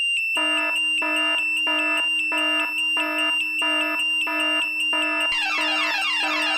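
Electronic alarm-clock tones layered together: a high beeping alarm tone, joined about half a second in by a lower pulsing beep about three times a second, and about five seconds in by a fast, repeated falling electronic pattern.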